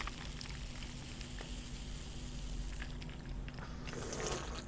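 Carbonated soda pouring from a can into a glass and fizzing, then drunk from the glass with swallowing sounds about four seconds in.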